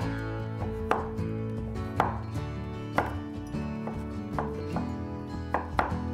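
Chef's knife chopping slowly through a hard brown-skinned kernel on a wooden cutting board, a sharp knock of the blade on the board about once a second, with soft guitar music underneath.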